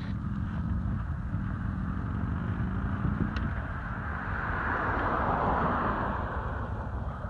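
Wind rumbling on the microphone, with a motor vehicle's engine running and passing; the noise swells about five seconds in.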